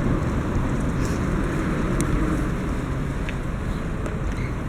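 Road traffic running steadily, a low rumble with strong wind buffeting the microphone.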